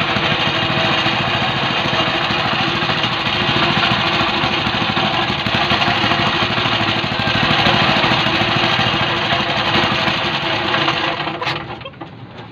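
Robin 5 hp single-cylinder engine powering a small fishing boat, running loud and steady, then dropping away sharply with a click near the end.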